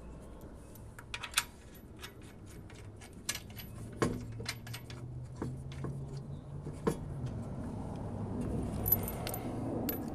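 Steel lug nuts clinking and jingling as they are handled, a scatter of sharp metallic clicks.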